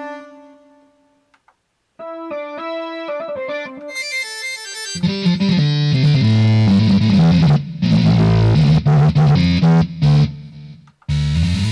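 Roland AX-Edge keytar being played as a sound check: a held note fades out, then a short run of clean single notes, then from about five seconds in a loud, dense patch with heavy low notes. It stops briefly near the end and starts again.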